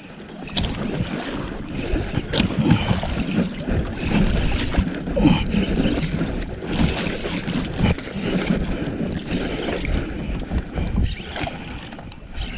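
Water lapping and sloshing against a small outrigger fishing boat's hull, with wind rumbling on the microphone and scattered irregular knocks.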